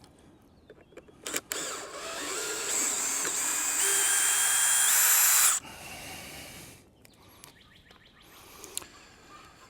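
Power drill running for about four seconds, its whine growing louder and stepping up in pitch, then cutting off suddenly. A few light clicks come before it.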